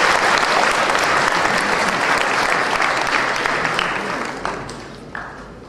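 Audience applauding, a dense steady clapping that dies away over the last second or two, with a few last scattered claps near the end.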